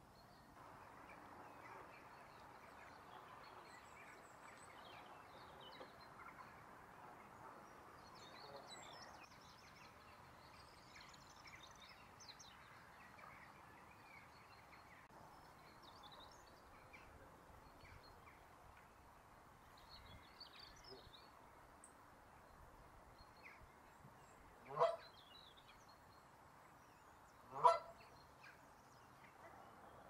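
Canada goose honking, two loud single honks about three seconds apart near the end, over faint chirping of small birds.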